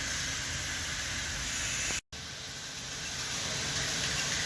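Steady hiss of indoor background noise, cut off by a sudden dropout to silence about two seconds in before the same hiss resumes.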